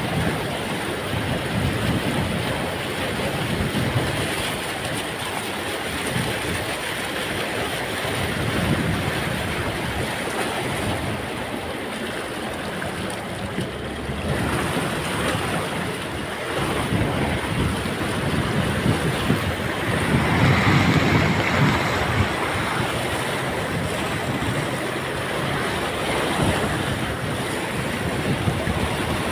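Vehicle driving through deep floodwater: a continuous rush and slosh of water being pushed aside by the vehicle, with wind buffeting the microphone. The splashing swells louder for a couple of seconds about two-thirds of the way through.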